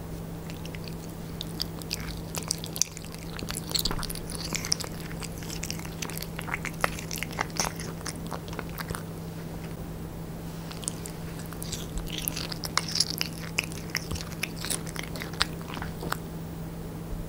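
Devon Rex cat chewing chewy raw meat: runs of short wet clicks and crunches with brief pauses between, over a steady low hum.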